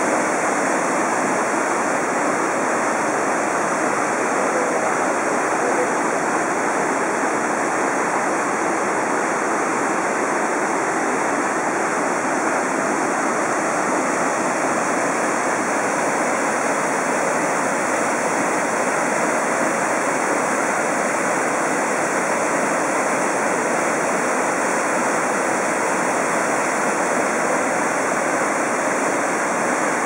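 Rushing water of a rocky cloud-forest stream and waterfall: a steady, even wash of falling and tumbling water with no break or change.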